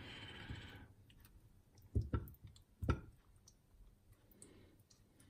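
A few light clicks and taps from handling stuffed chicken breasts and toothpicks during food preparation, clustered about two to three seconds in.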